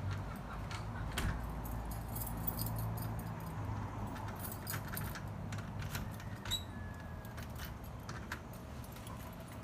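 A bunch of keys jangling and a series of small metallic clicks as a key is worked in a front-door lock, over a steady low hum.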